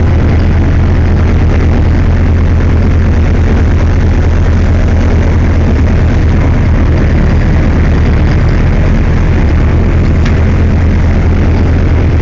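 A fishing boat's engine running steadily: a loud, unchanging low drone.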